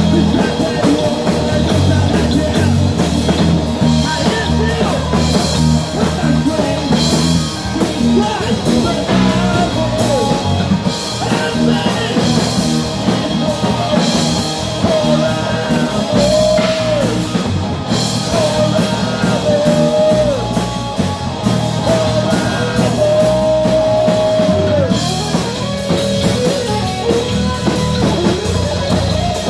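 Live heavy metal band playing loud: distorted electric guitars, bass and a drum kit, with a singer's vocals. In the second half, long held notes waver and bend over the band.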